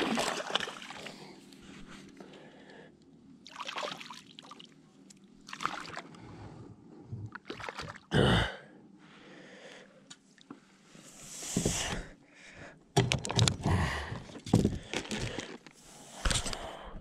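A hooked bass splashing at the surface beside a kayak, with scattered knocks and rustles as it is handled and lifted from the water.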